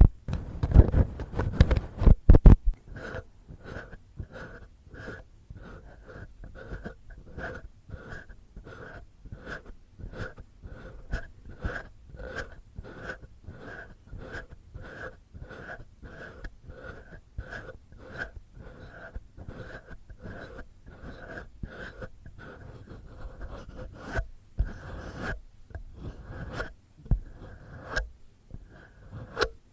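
Fingertips and fingernails scratching and rubbing right at a microphone, standing in for ear cleaning. A heavy rubbing fills the first couple of seconds. It then settles into steady, even scratching strokes, about two a second, which grow less regular near the end.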